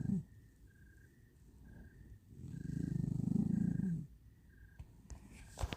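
Shar Pei puppy snoring: the end of one snore right at the start, then one long snore from about two and a half seconds in, lasting about a second and a half. A few sharp clicks near the end.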